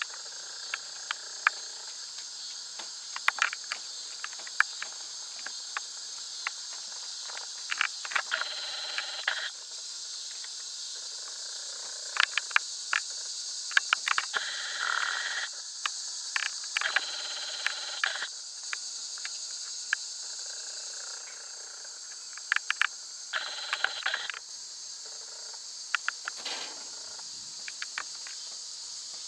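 Steady, high-pitched chorus of insects, with many scattered sharp clicks and a few short bursts of noise lasting about a second each.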